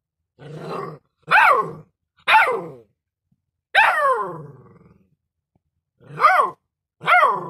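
Puppy giving a series of six short bark-like yelps, each falling in pitch. The first is lower and rougher, and the fourth, about halfway through, is drawn out longer than the rest.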